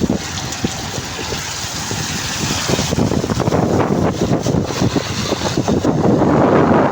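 A vehicle driving: engine and road noise mixed with wind buffeting the microphone, growing louder over the last few seconds.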